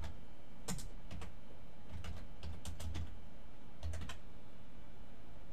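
Computer keyboard being typed on: separate keystrokes in short runs of two or three, over a low steady hum.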